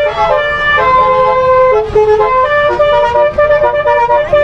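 Multi-tone telolet horn on a tour bus playing a melody, several horn tones sounding together and stepping from note to note, over a low rumble.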